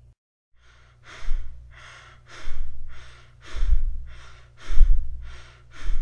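A person breathing rapidly, demonstrating tachypnea: about five quick, airy in-and-out breaths, roughly one a second, starting about half a second in.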